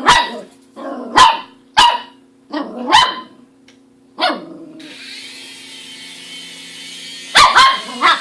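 Dog barking in short, sharp single barks, about seven of them spread unevenly, the last two close together.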